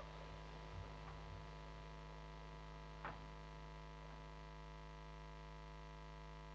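Near silence: a steady electrical hum from the stage sound system, with one faint knock about three seconds in.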